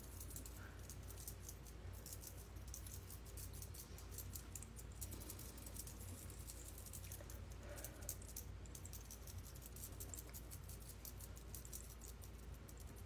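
Faint, rapid, irregular soft tapping of a makeup sponge dabbing liquid foundation onto the skin, over a low steady hum.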